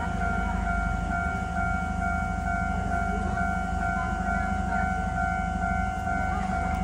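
Railway level-crossing warning signal sounding a steady electronic tone, over a low rumble.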